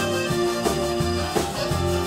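Live blues and rock 'n' roll band playing an up-tempo number: a bass line under a steady drum beat of about three strokes a second.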